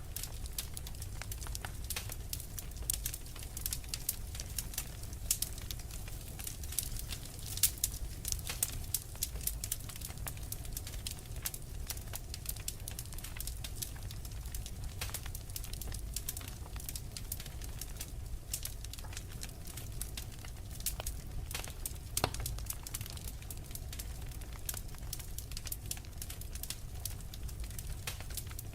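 Wood fire crackling in a fireplace, with frequent sharp pops and snaps over a low steady rumble. The pops come thickest in the first half and thin out later.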